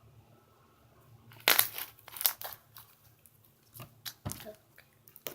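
Stiff, cold slime being poked and squeezed by hand, giving sharp crunchy pops and cracks: a loud cluster about a second and a half in, then a few softer ones near the end.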